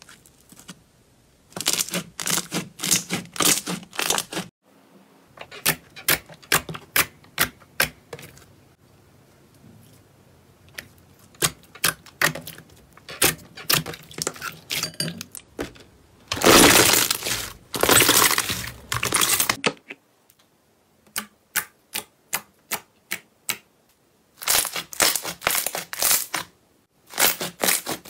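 Slime being pressed and squeezed, giving runs of sharp crackling clicks with short pauses between. A longer, louder stretch of dense crackling comes a little past the middle.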